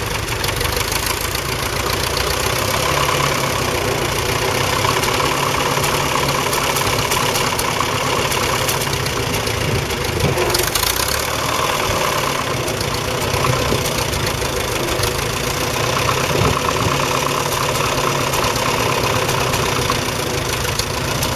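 1942 Fordson Model N's 4.4-litre four-cylinder petrol/TVO engine running steadily at low revs with an even firing beat while the tractor pulls a two-furrow trailed plough.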